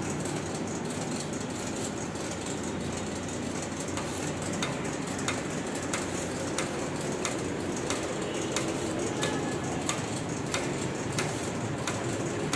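Workshop machinery running steadily, with a sharp click repeating about every two-thirds of a second as the machine cycles.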